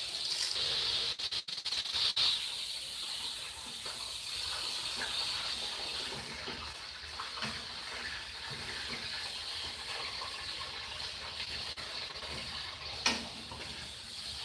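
Linguiça sausages frying in a pot on a gas stove, a steady sizzling hiss as they are stirred with a utensil, with one sharp knock near the end.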